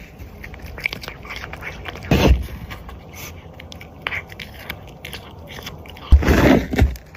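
A cat biting and chewing food close to the microphone: quick, small crunching clicks throughout, with two louder bites, one about two seconds in and a longer one near the end.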